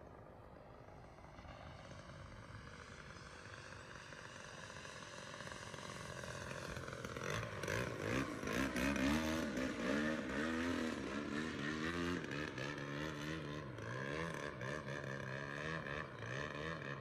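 Petrol engine of a 92-inch Edge 540 radio-controlled aerobatic plane in flight, faint at first and growing louder over the first several seconds, then its pitch rising and falling again and again as the plane manoeuvres.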